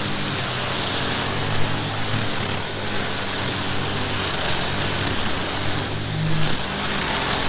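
Stihl FS 190 R two-stroke string trimmer running at high throttle, its spinning line giving a loud, high whine over the engine note. The revs dip briefly about four and a half seconds in, then pick up again.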